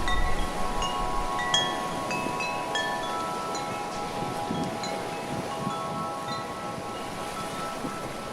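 Wind chimes ringing in the wind: scattered strikes at many different pitches over a few lingering tones, with wind rushing on the microphone.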